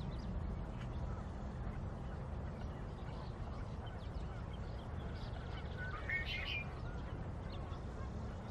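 Scattered bird calls over a steady low rumble, with a clearer short run of chirps about six seconds in.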